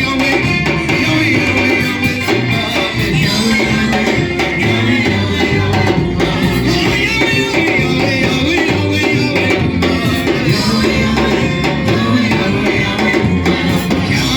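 Upbeat church worship music with drums and singing voices, steady and loud.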